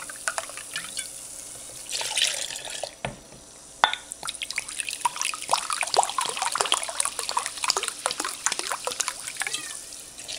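Water poured from a glass measuring jug into a plastic pitcher of cut fruit, trickling and splashing over the fruit slices. A sharp knock comes about four seconds in, followed by a dense run of splashing until near the end.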